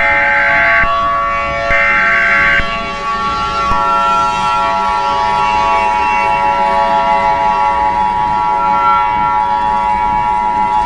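Emergency Alert System broadcast tones: the last two of three short, harsh digital data bursts of the alert header, then the steady two-tone EAS attention signal starts about a second later and holds.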